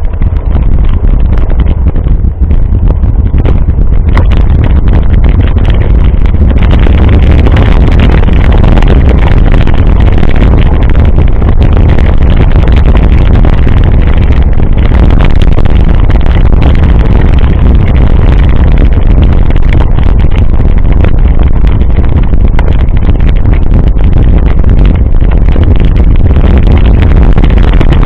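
Loud, steady wind buffeting on a bike-mounted camera's microphone as a mountain bike is ridden fast. Many small knocks and rattles from the bike and camera mount run through it.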